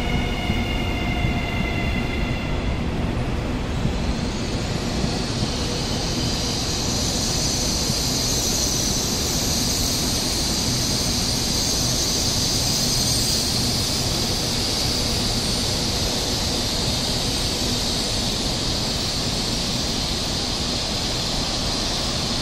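A CR400BF-A Fuxing high-speed train rolling past with a steady rumble. A falling whine fades out over the first couple of seconds, and from about four seconds in a high hissing squeal holds until near the end.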